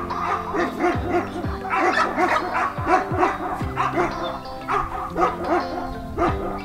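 Background music with a steady beat, over dogs barking and yipping.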